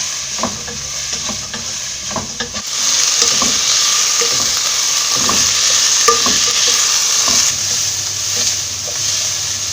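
Chopped onions sizzling in a little hot oil in a pan as they are sautéed, with the spoon clicking and scraping against the pan while stirring. The sizzle gets louder about a third of the way in.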